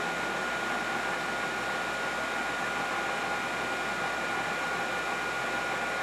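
Belt grinder running free with no work against the belt: a steady whir of motor and belt with a constant high whine.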